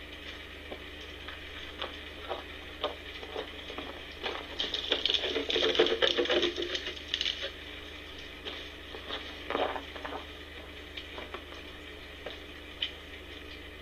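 Footsteps crunching on wood-chip ground, passing close by and loudest from about four and a half to seven and a half seconds in, among scattered light clicks and rustles of handling, over a steady low hum.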